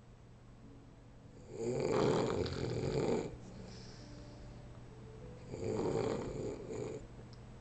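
A man snoring in his sleep: two long snores about four seconds apart, each lasting a second or two, over a steady low hum.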